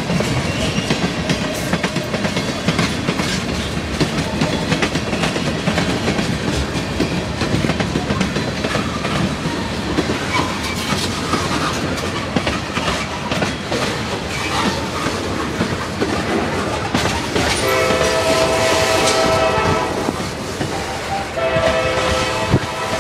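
Freight cars of a CSX train rolling past, steel wheels clattering over the rail joints. About 17 s in, a locomotive's multi-tone air horn sounds a steady chord for about two and a half seconds, then sounds again near the end.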